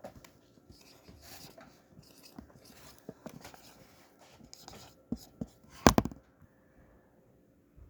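Scratchy rubbing and tapping on a whiteboard, with a loud, sharp knock about six seconds in.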